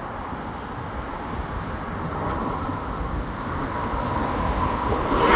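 Road traffic hissing on a wet street, growing steadily louder as a vehicle approaches.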